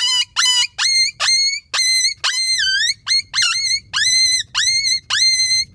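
TT Black Creek Howler, a one-piece reed coyote howler, blown in a rapid string of about a dozen short, high yelps. Each yelp sweeps sharply up and is briefly held, and a couple of them waver down and back up. This is the ki-yi pup distress call, imitating a coyote pup in distress.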